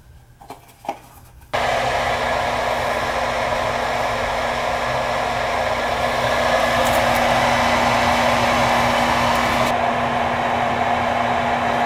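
Whirlpool gas furnace starting up: a motor switches on abruptly about a second and a half in and runs loudly and steadily, with a rush of air over a steady low hum. The higher hiss drops off a little near the end.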